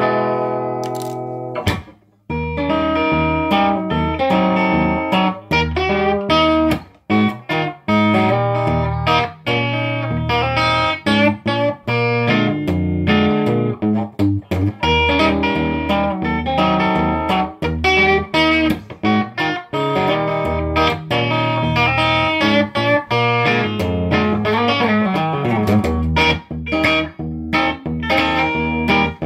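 Gretsch G6128T-DCM electric guitar played straight into a 100-watt plexi amp. A held chord rings for about a second and a half and cuts off. Then comes a busy run of picked notes and chords with short stops.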